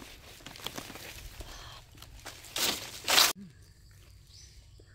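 Rustling and crackling of dry leaves underfoot and underhand on a forest floor, with two louder bursts of rustling just before the sound cuts off abruptly, leaving a quiet background with a few faint ticks.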